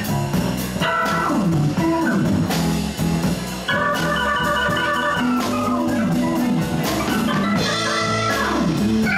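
Live band playing an instrumental passage: electric guitar, bass guitar, drum kit and keyboard, with a steady drum beat and held chords.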